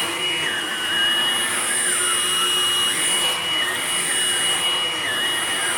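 Hoover Blade Plus vacuum cleaner running on carpet: a steady high whine over a rushing hiss, with a lower tone that wanders up and down as it is pushed across the carpet.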